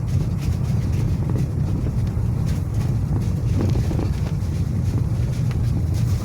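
A vehicle driving in the rain: a steady low rumble of engine and road noise with a hiss of rain and wind over it.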